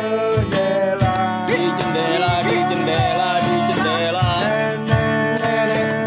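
Several men singing together in harmony to a strummed acoustic guitar, with a cajon keeping a steady beat of about two strokes a second.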